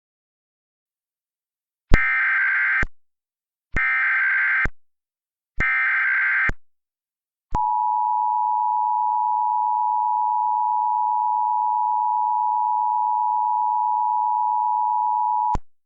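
Emergency Alert System tones from a mock alert: three short bursts of digital data tones of about a second each, then the two-tone attention signal held steady for about eight seconds, announcing an emergency alert.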